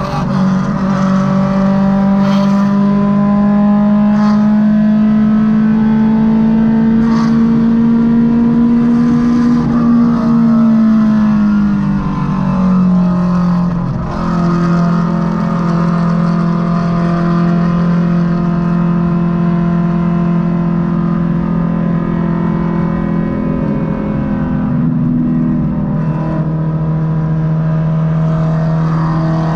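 Honda Civic EK's naturally aspirated VTEC four-cylinder engine droning at highway cruise, heard from inside the cabin. Its pitch creeps up slowly, drops over a few seconds about eleven seconds in as the car slows, then holds steady.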